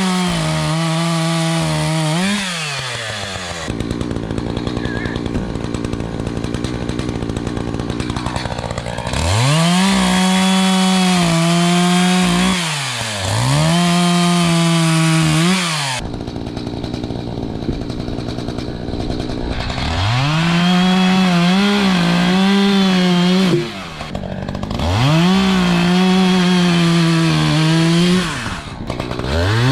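ECHO CS-590 Timberwolf two-stroke chainsaw revved to full throttle in about five bursts of two to three seconds each, dropping back to idle between them. The longest stretch at idle comes a few seconds in.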